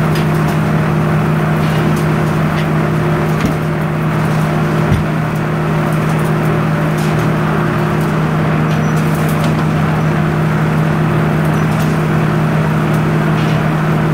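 Sawmill's power unit running at a steady speed, with a few knocks of a log being rolled onto the carriage with a cant hook.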